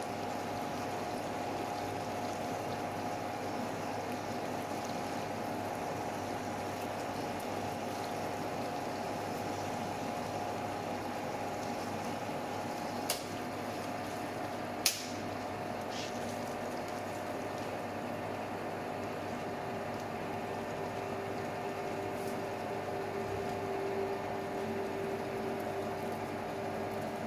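Ward 3A capstan lathe running while it drills deep into a bush, with coolant pouring over the drill: a steady whine over an even liquid hiss. Two sharp clicks come about two seconds apart near the middle.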